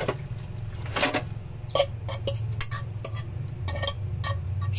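Pan and metal utensil clinking and scraping against a stainless steel mesh strainer as cooked linguine is drained and transferred into it: about eight sharp clinks spread over the few seconds, over a steady low hum.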